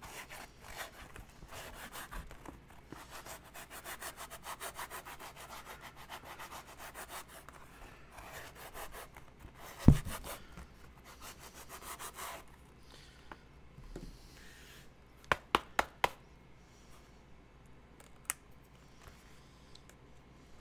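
Hand sanding of a foam costume piece: rapid, rhythmic rubbing strokes for about twelve seconds, with one loud thump partway through. After that come a few sharp clicks and knocks.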